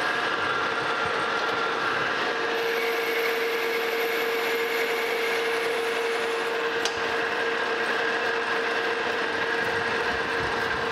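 Monarch metal lathe running under power in its threading feed, gears whining steadily, as a single-point boring bar takes a spring pass on internal threads: a cleanup pass at the same depth to remove what tool pressure left behind. One sharp click about seven seconds in.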